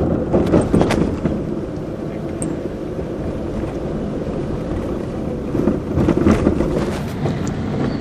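Steady engine and road noise heard inside a moving car's cabin. Over it come rubbing and knocking from the camera being handled against clothing, near the start and again about six seconds in.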